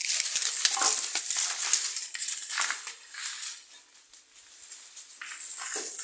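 Crunching and crackling of dry debris underfoot, a rapid run of small cracks, louder in the first couple of seconds and quieter after.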